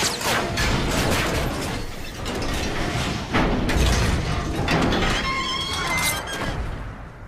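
Film sound effects of heavy metal clanks and impacts over hissing steam, with a brief high ringing screech about five seconds in. The level drops near the end.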